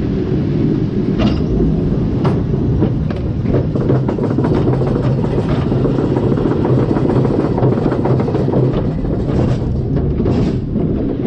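Roller coaster train running along its track, heard from on board: a steady rumble with frequent clacks and clicks from the wheels and track.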